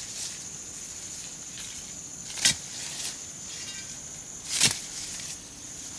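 Metal digging bar driven into soil to loosen an elephant foot yam for lifting, striking twice about two seconds apart, over a steady high-pitched drone.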